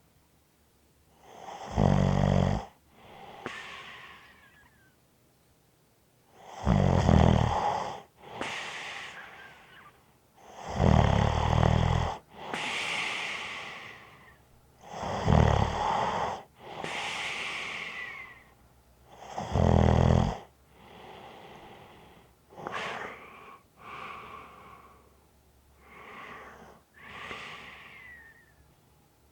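A person snoring in sleep: five loud snores, each followed by a softer breath carrying a light whistle that falls in pitch. From about twenty seconds in, the breaths are softer, with only faint whistles and no loud snore.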